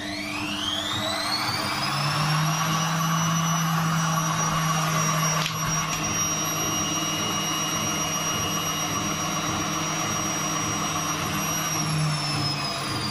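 Indesit washing machine running with a high motor whine that rises over the first few seconds, holds steady, then starts to fall near the end, with a steady low hum beneath. This is typical of the drum speeding up for a spin and then slowing.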